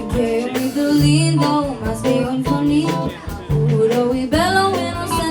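A live band jamming on a Brazilian groove, with guitar, bass notes and a steady percussion beat.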